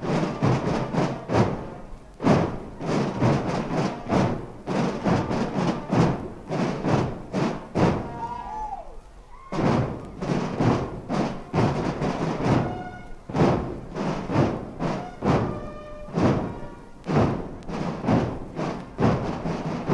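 Katzenmusik carnival band playing a march: drums beating about twice a second under brass horns, with held horn notes in the middle stretch.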